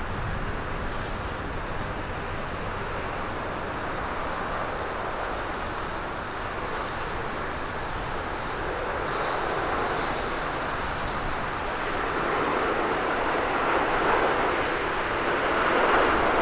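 Boeing 787-10 Dreamliner on final approach, its jet engines a steady rushing roar that grows louder toward the end as the airliner nears the runway.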